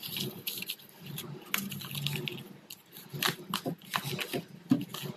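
Tightly wound twine being pulled off the core of a leather cricket ball: irregular short scratchy rasps and tearing sounds as the thread comes away.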